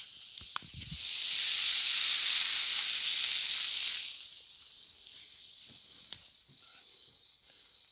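Butter sizzling under bread slices frying in a skillet, a steady high hiss, which swells much louder for about three seconds near the start. A sharp click sounds about half a second in.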